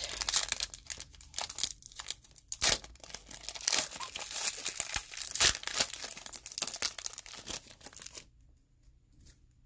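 Foil wrapper of a Score football card pack being torn open and crinkled, a dense crackling that stops about eight seconds in.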